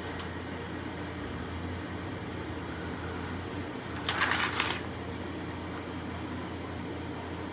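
A page of a paperback book turning once, a short paper rustle about four seconds in, over a steady low room hum.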